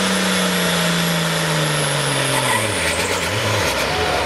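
Turbocharged diesel pulling tractor at high revs at the start of a pull, a high turbo whine above the engine note. About two and a half seconds in, the engine note and the whine both drop in pitch.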